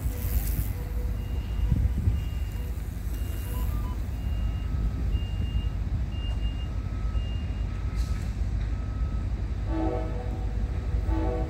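Electronic warning beeps from a passenger train stopped at a platform, repeating about twice a second, first at a high pitch and then at a lower one, over a steady low rumble.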